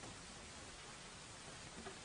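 Steady, even white-noise hiss at a low level, with a couple of faint ticks near the end.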